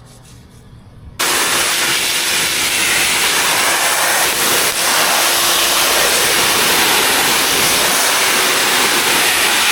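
Aerosol can of aircraft paint stripper spraying in one long continuous hiss onto a motorcycle wheel. It starts suddenly about a second in.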